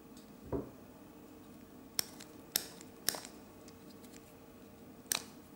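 Lego Technic plastic parts of a small pneumatic engine clicking as they are handled and fitted together: a soft knock about half a second in, then four sharp clicks.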